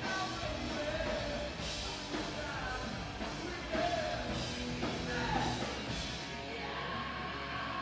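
Live rock band playing: distorted electric guitars, bass and drums with cymbals under a singer's vocal. About six and a half seconds in, the drums and bass drop out, leaving one steady held tone.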